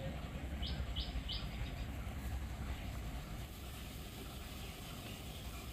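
Steady low outdoor background rumble, with a bird chirping three times in quick succession about a second in.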